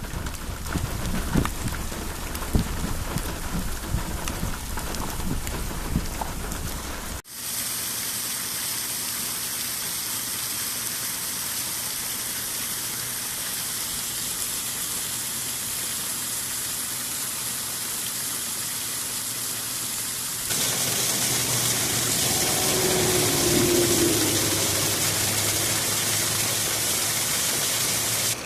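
Rain falling steadily, in pieces that cut off suddenly about seven seconds in and again about twenty seconds in, the last piece louder. The opening part has irregular low knocks over the rain.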